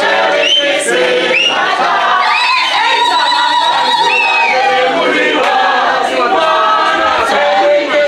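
A group of people singing together without instruments, many voices close around the microphone, with short high rising-and-falling cries over the singing every second or two.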